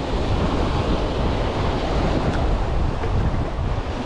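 Wind rumbling on the microphone over the steady wash of surf.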